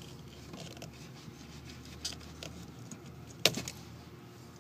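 Hands handling a car's plastic OBD2 connector and its loose wires: small clicks and rustles, with one sharp click about three and a half seconds in.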